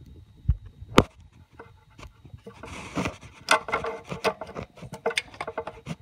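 Close-up handling noise: rubbing, scraping and irregular clicks as a hand works at the crankshaft position sensor's plastic wiring connector to unplug it. A sharp knock about a second in is the loudest sound, with a softer one just before it.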